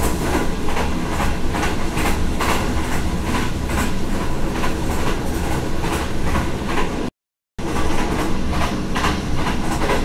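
Inside a moving Pakistan Railways passenger coach: the steady running noise of the train on the track, with frequent irregular clattering and rattling. It cuts out for about half a second roughly seven seconds in, then carries on.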